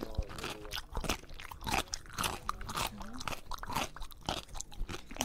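A cat chewing and biting at a white sneaker: an irregular run of crunchy chews, several a second.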